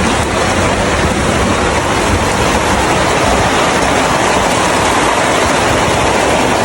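Heavy rain falling, a loud, steady hiss with no let-up.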